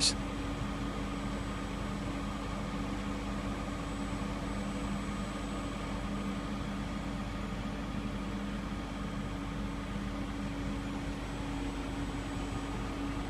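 Steady, unchanging mechanical hum with a few held tones over a low rumble, like a heavy diesel engine idling.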